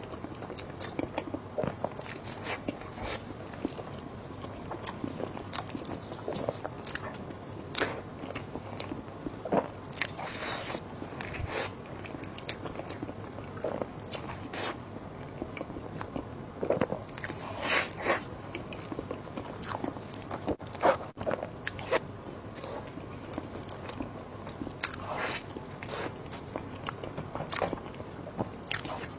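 A person eating close to the microphone: irregular bites and chewing with crunchy, crackling mouth clicks, several a second, typical of mukbang eating sounds.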